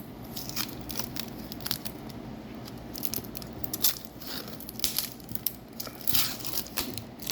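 Protective plastic film being peeled off a PC component, with irregular crinkling and crackling of the film.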